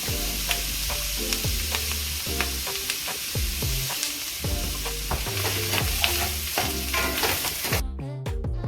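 Meatless chicken pieces sizzling as they fry in a hot pan, with occasional clicks of a utensil stirring them. The sizzle cuts off suddenly near the end.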